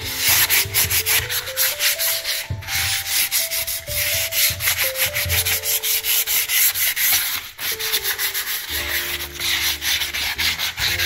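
Sandpaper rubbed by hand over sandblasted oak in quick back-and-forth strokes, matting and smoothing the roughened grain before lacquering.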